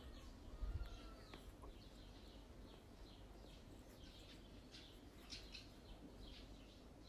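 Faint chirping of small birds, short high chirps repeating a few times a second, over quiet room tone, with a little low handling noise in the first second.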